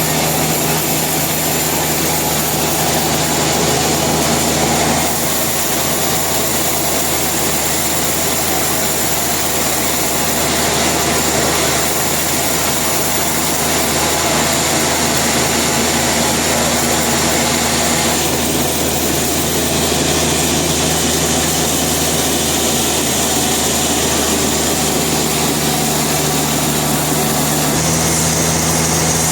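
Sawmill machinery running steadily: a loud engine-like hum with a high whine above it, the pitch of the hum shifting slightly about five seconds in and again near the end.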